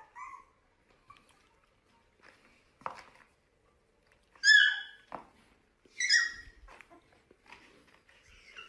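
A puppy giving two high-pitched yips about a second and a half apart, the first about halfway through, with a fainter whimper at the start and a few light taps.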